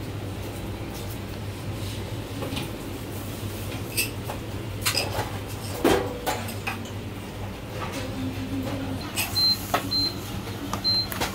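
Scattered knocks and clicks of a metal ladle and plastic takeaway boxes as sliced marinated goose is sauced and packed, over a steady low electrical hum. Near the end, four short high electronic beeps.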